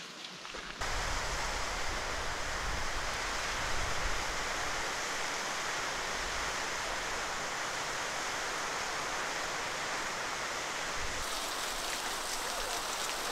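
Steady rushing of falling water from a waterfall, cutting in suddenly about a second in, with an uneven low rumble beneath it. Near the end the rush turns brighter and more hissing.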